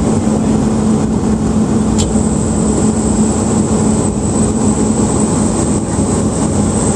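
Steady engine and propeller drone heard inside the cabin of a small turboprop airliner in flight on its descent, with a constant low hum and a thin high whine. A brief click about two seconds in.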